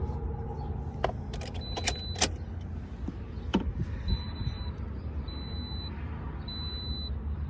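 High-pitched electronic beep pulsing on and off about once a second over a steady low hum, with a few sharp clicks early on, heard while a 2010 Toyota Corolla's transponder key is being programmed.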